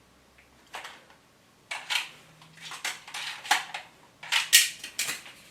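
A string of short clattering knocks and scrapes, irregular and loudest a little before the end.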